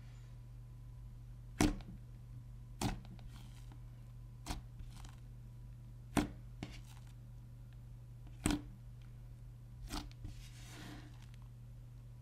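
Yellow clear slime being pressed, folded and stretched by hand, giving sharp clicks and pops every second or two and a softer squelch near the end.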